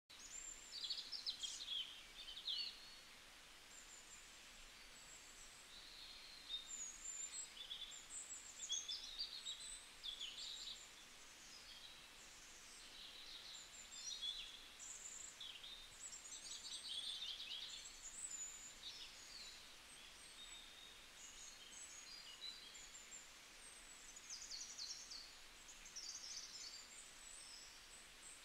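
Faint birdsong: many small birds chirping and twittering in short, irregular phrases over a light hiss.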